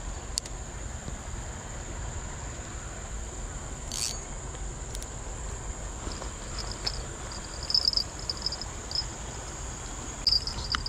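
Insects calling in the riverbank vegetation: a steady high-pitched buzz throughout, joined about six seconds in by a pulsing, chirping trill that comes in loud spurts. A single click about four seconds in.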